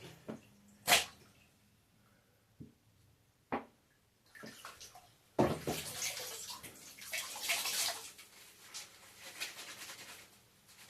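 Water splashing and running in a bathtub while a cat is washed: a few sharp knocks early on, the loudest about a second in, then a longer stretch of running, splashing water from about five seconds in.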